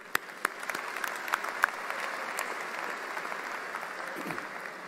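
Audience applause, with a few loud single claps close to the podium microphone at the start, then many people clapping together. The clapping swells and then tapers off near the end.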